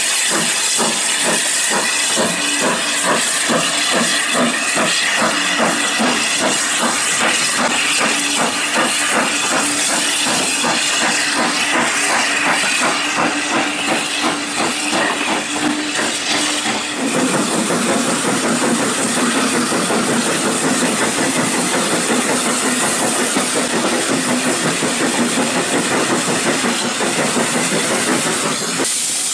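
Austerity 0-6-0 saddle tank steam locomotive pulling away with its train, exhaust chuffing in an even rhythm of beats over a hiss of steam. About two-thirds of the way through the sound changes to a steadier, noisier run of the moving train, heard from aboard a carriage.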